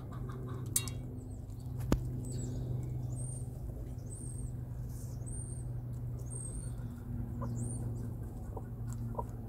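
Aseel chickens pecking grain from a metal feed bowl, with two sharp taps in the first two seconds. A run of about six short, high, thin chirps follows, one roughly every second, over a steady low hum.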